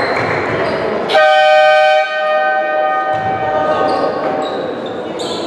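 A sports-hall game horn (scoreboard buzzer) sounds once, about a second in, as a loud steady electronic chord lasting just under a second that then rings on in the hall. Around it, a ball bouncing on the court and voices.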